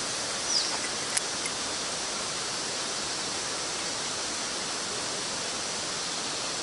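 Mountain stream water rushing steadily, an even hiss of flowing water. A short falling chirp and a sharp click come within the first second or so.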